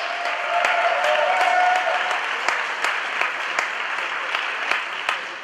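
Crowd in an arena applauding, with many sharp individual claps and a voice held on one note over it for the first two seconds.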